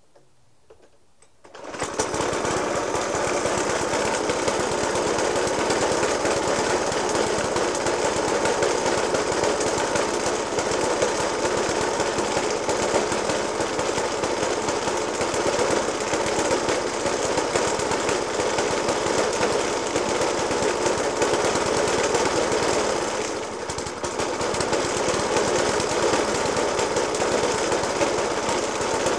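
Suffolk Punch 30S petrol lawnmower engine running at a rough idle with heavy banging, a fault that remains after a new spark plug, a decoke and a cleaned Dellorto FCH 20 carburettor. The engine comes in abruptly about two seconds in and dips briefly about two-thirds of the way through.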